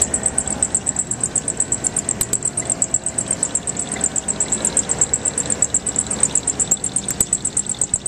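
Belt drive of a 5-ton American Standard/Trane package unit's blower chirping rapidly and evenly, about eight high chirps a second, over the steady running noise of the unit. The chirping is the sign of a bad, slipping blower belt, with the unit not moving enough air and its evaporator coil iced up.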